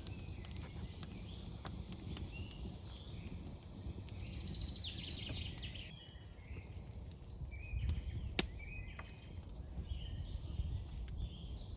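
Songbirds chirping, with a short trill about four seconds in, over a steady low rumble. A few sharp clicks, the loudest a little past eight seconds in.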